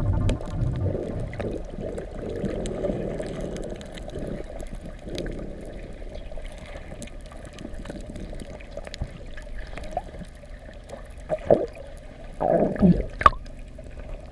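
Muffled seawater heard through a submerged camera: a steady churning wash with scattered faint clicks. A few louder sloshing surges come about two-thirds of the way through and again near the end.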